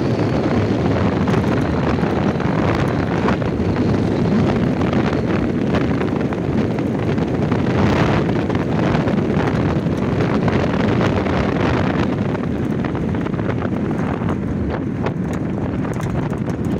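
Wind rushing over the phone's microphone and tyre and road noise from a car driving along a rough rural road, easing off slowly toward the end as the car slows.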